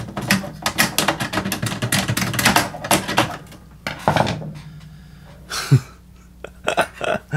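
Clatter from handling a plastic boombox cabinet and metal screwdrivers: dense clicking and rattling for about four seconds, then a few separate knocks near the end.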